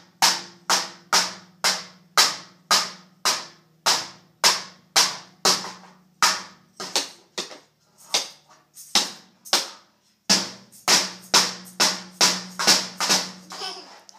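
Loud sharp strikes in a steady beat, about two a second, each ringing briefly, over a faint low hum. Both stop for a moment about ten seconds in, then resume.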